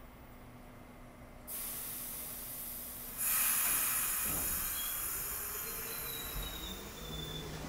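R68 subway train's air brakes releasing with loud hissing: a sudden hiss about a second and a half in, then a louder one just after the middle. Near the end a low rumble comes up as the train starts to roll out of the station.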